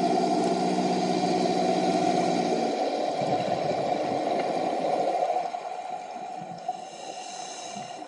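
An engine drones steadily, then fades out about three seconds in, leaving a steady wash of water noise that drops in level a couple of seconds later.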